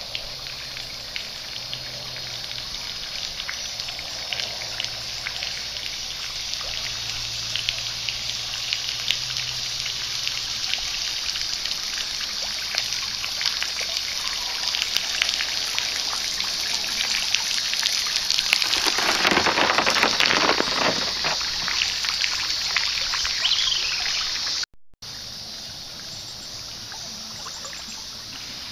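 River water trickling and splashing, many small drips and splashes close by, growing louder about two-thirds of the way through. It cuts off suddenly near the end to a quieter, steady rush of water.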